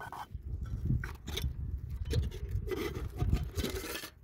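Nesting camp cookware being taken apart: pot, lid and outer pot scraping and knocking against each other, with a longer scrape about three seconds in, over a low rumble.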